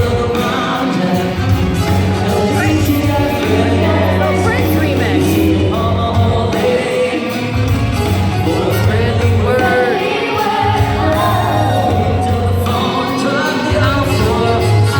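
Music with a singing voice over sustained bass notes.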